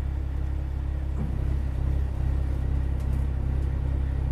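A truck's diesel engine running steadily, a low, evenly pulsing engine note, with a few faint ticks over it.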